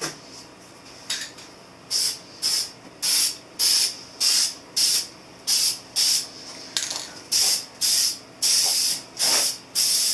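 Aerosol spray-paint can hissing in short repeated bursts, about one to two a second, starting about two seconds in, as a coat of black paint is sprayed on.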